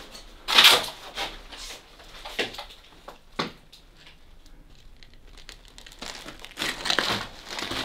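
Crunching and crinkling of loose debris in irregular bursts, loudest about half a second in, with a cluster of scrapes and crackles near the end.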